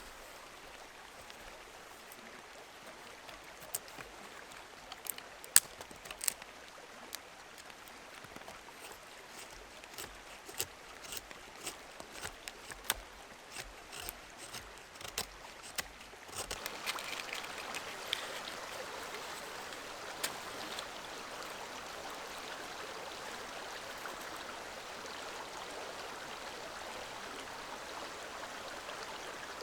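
Scattered sharp ticks and taps over a faint hiss. About sixteen seconds in, the steady rush of a forest stream comes in and carries on.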